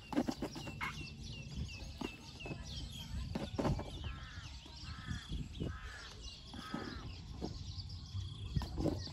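A crow caws four times, about a second apart, over smaller birds chirping. Scattered soft knocks and scuffs come from a baby elephant's feet and the old tyre it kicks along a dirt track.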